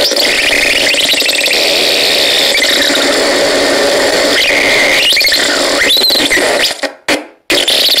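Syntetizáro mini model 21 Dual, a handmade noise synthesizer, played with thumbs on its two metal contacts. It gives a harsh, noisy electronic squeal with wavering pitch glides. Near the end it cuts out for about half a second, then comes back as a rapid stutter.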